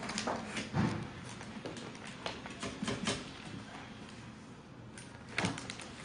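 Hands handling tools and a plastic tool case on a table: a run of irregular small clicks and knocks, the loudest a dull knock about a second in and another sharp knock near the end.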